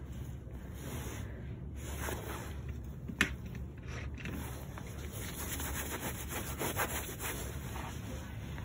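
Rubbing and scraping handling noise as a hand-held phone is shifted and brushed against hands or clothing, with one sharp click about three seconds in.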